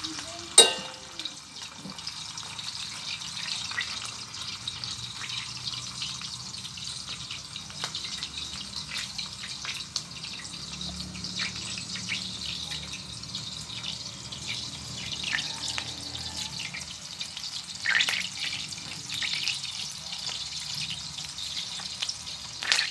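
Vigan longganisa pork sausages sizzling in a stainless steel frying pan, a steady hiss with scattered crackles and pops of spitting fat. A single sharp click about half a second in, and a louder burst of sizzling later on.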